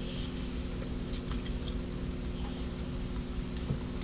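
Chewing and mouth sounds of someone eating fried chicken: soft, irregular little clicks and crackles, with a sharper click at the very end, over a steady low hum.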